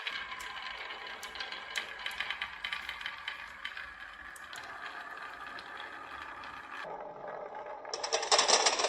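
Marbles rolling and clicking along a toy marble run, with a steady rattle of many small impacts. Near the end a much louder, dense clatter starts as the marbles rattle down together.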